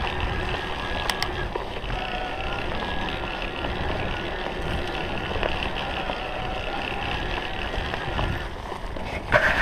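Mountain bike riding along a dirt singletrack, heard from the bike: a steady rush of wind and tyre noise with rattling from the bike. A louder scrape comes near the end.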